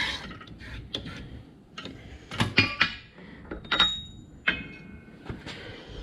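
Steel parts and tools being handled, clinking and knocking together: a string of sharp metallic knocks, a few of them ringing briefly, the loudest bunched in the middle.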